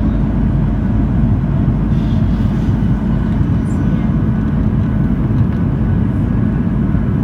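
Boeing 737-800's CFM56-7B jet engines and rushing airflow heard inside the passenger cabin as a steady, deep roar with a low hum.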